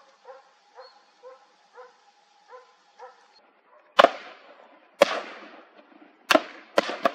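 A dog barking in a steady series, about two barks a second, stops; then five gunshots ring out about a second apart, the last two close together, in a wild boar hunt.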